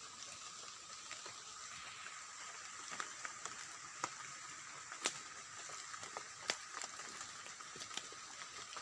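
Forest ambience: a steady hiss with two constant high-pitched tones running through it, and scattered sharp clicks and snaps every second or so.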